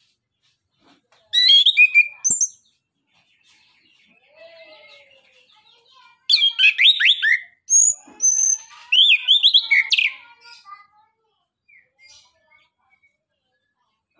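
Chestnut-capped thrush singing in loud bursts of rapid, high notes: a short phrase about a second in, then a longer run of phrases from about six to ten seconds in, with faint scattered notes in between.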